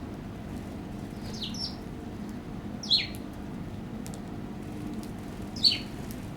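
Eurasian tree sparrows chirping: three short falling chirps, the second and third louder, over a steady low background hum.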